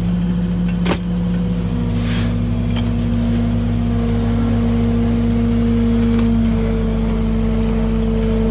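An excavator's diesel engine runs steadily under load as it lifts an old vinyl seawall sheet out of the ground on a chain and clamp. Its note rises a little twice. There is one sharp knock about a second in.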